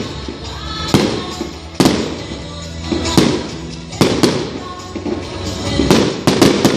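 Aerial fireworks bursting overhead in an irregular series of sharp bangs, several in quick succession near the end. Music for the pyromusical show plays underneath.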